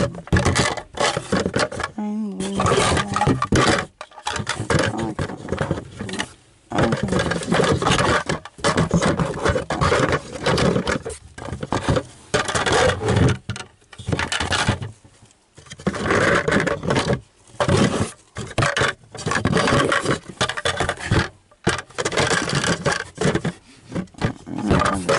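Toy garbage trucks and plastic mini bins handled in a cardboard box: plastic scraping and knocking on cardboard, broken by short pauses, with some pitched, engine-like sound mixed in.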